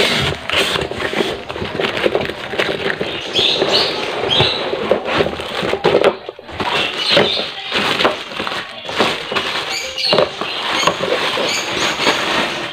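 Close rustling and crinkling of packaging being handled, with many quick small crackles.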